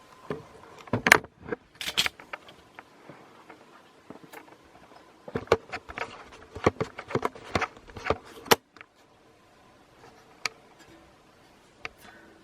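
Irregular clicks, knocks and rattles of objects being handled, in two busy clusters, one at the start and a longer one in the middle.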